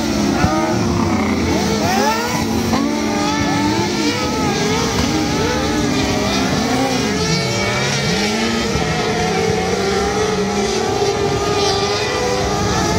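Several kart cross buggies' engines racing on a dirt track. Their pitches overlap and rise and fall continuously as they accelerate and ease off through the corners.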